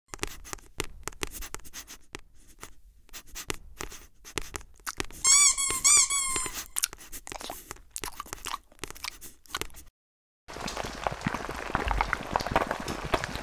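Sound effects for a TV channel ident: a scatter of small, irregular clicks and soft crunchy ticks, with a quick run of about five squeaky chirps, each rising then falling, between five and six and a half seconds in. It cuts out briefly near ten seconds, then a denser crackling texture follows.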